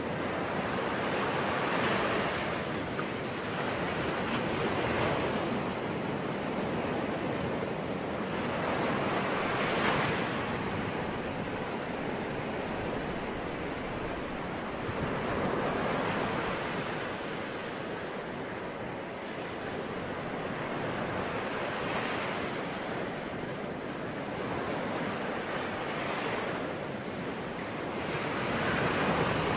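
Ocean waves breaking and washing on a shore, a continuous surf that swells every five or six seconds, with wind.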